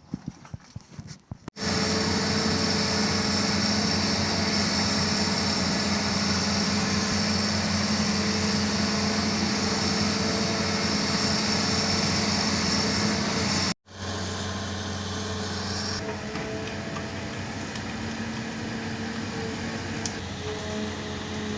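Amphibious excavator's diesel engine running steadily, with a constant high whine over the engine note. It starts abruptly about a second and a half in, cuts out sharply for an instant near the two-thirds mark, and then goes on a little quieter.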